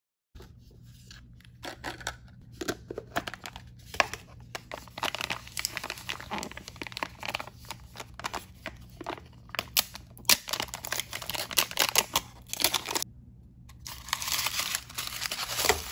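Plastic and foil wrapping of L.O.L. Surprise blind packaging crinkling and tearing as it is peeled and unwrapped by hand. The crackling goes on almost without a break, with one brief pause about four-fifths of the way through.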